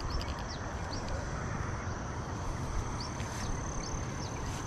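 Insects calling: a steady high-pitched tone with short falling chirps every so often, over a low rumble.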